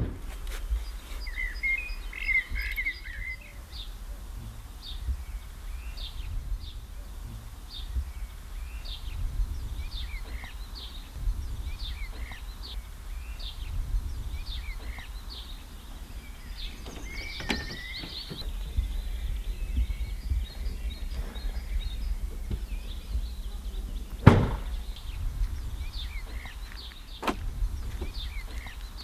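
Outdoor ambience: wind rumbling on the microphone, with small birds chirping in short, repeated calls throughout. About 24 seconds in, a car door shuts with a single loud thunk, the loudest sound in the stretch.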